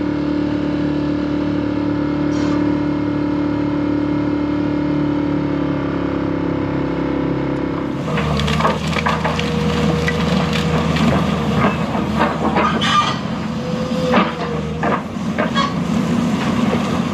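A boat's outboard motor running steadily at a constant pitch. About eight seconds in it gives way to irregular knocks and clatter, like wood and debris being handled, over a low engine rumble.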